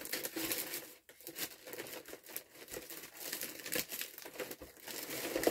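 Clear plastic cellophane gift bag crinkling as it is handled, with irregular crackles throughout.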